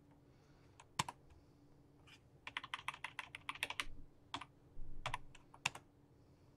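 Computer keyboard keys being pressed: a single sharp keystroke about a second in, a quick run of about a dozen keystrokes in the middle, then a few more presses and a last sharp one near the end, over a faint steady hum.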